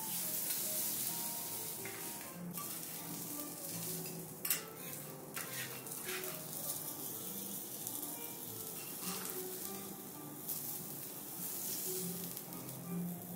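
Food sizzling on a hot teppanyaki steel griddle, with a shiitake mushroom and kabocha squash grilling: a steady hiss. Metal utensils click against the plate several times, clustered from about four to six seconds in and again around nine and ten seconds.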